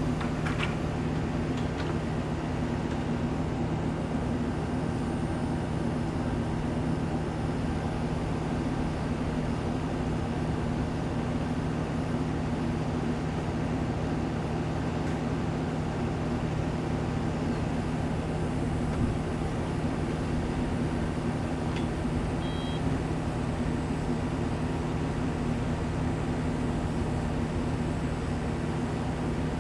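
Construction equipment engine running at a steady speed, holding one even drone with no revving.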